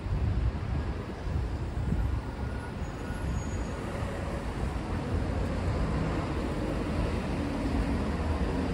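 City street traffic: a steady low rumble of passing cars and buses, engines and tyres, with a faint engine note near the end.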